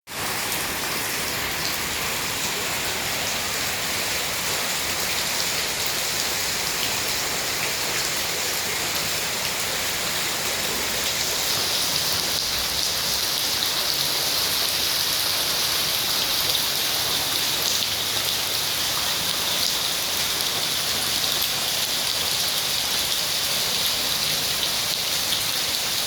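Heavy rain falling on the water of a swimming pool, a steady even hiss of drops on the surface that grows a little louder about halfway through.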